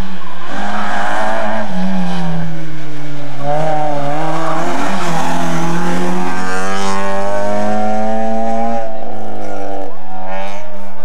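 Rally car engines at full throttle. The pitch climbs as each car accelerates, drops at the gear changes, and a new engine note takes over near the end.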